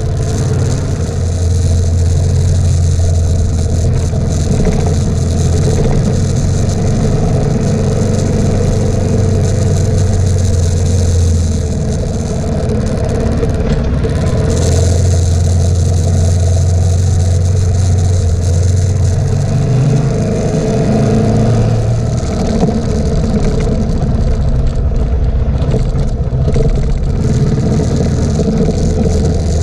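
Suzuki DR650 single-cylinder engine running under way on a dirt track, with steady wind noise. The engine note eases off about twelve seconds in and again around twenty seconds in, picking back up each time.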